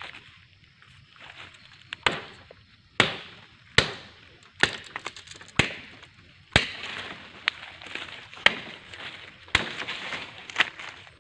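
Heavy blows of a wooden club striking a snared wild boar, about ten sharp knocks roughly a second apart starting about two seconds in, with rustling of leaves and brush between them.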